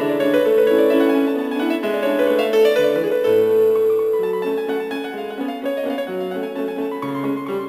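Background music led by piano, with several notes sounding together and a moving melody line.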